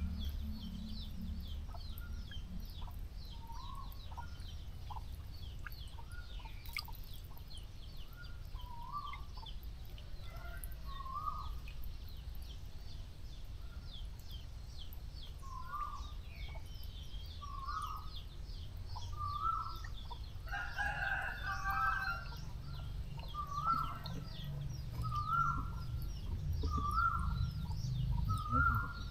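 Chickens calling: a short call repeats about every second and a half, and a rooster crows once about two-thirds of the way through, over a steady low rumble.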